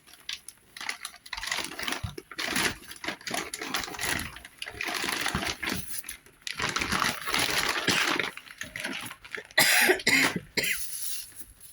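Irregular rustling and crinkling of packaging as items are handled and taken out of a box, with a louder rustle near the end.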